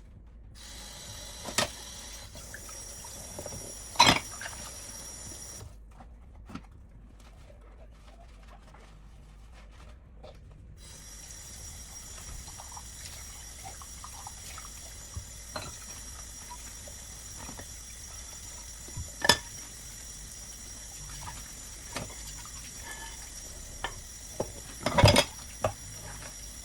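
Water running from a kitchen tap into a sink, shutting off for about five seconds and then running again. Now and then dishes or utensils clink against it, with the loudest clatter near the end.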